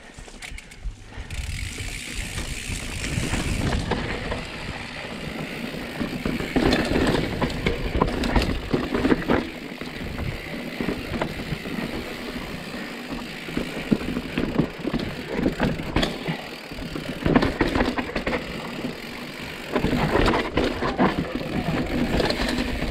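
Specialized Status mountain bike riding fast downhill over rock: tyres rolling, and the chain and frame rattling and knocking over the bumps. Wind buffets the helmet-camera microphone.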